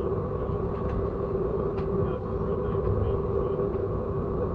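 Train running: a steady low rumble with a steady droning hum.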